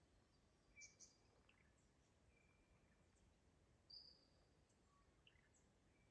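Near silence: faint bush ambience with a few brief, faint bird calls, the clearest about a second in and about four seconds in.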